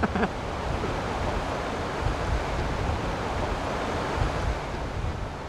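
Steady rush of a rocky mountain river running through riffles, with wind buffeting the microphone in low, uneven gusts.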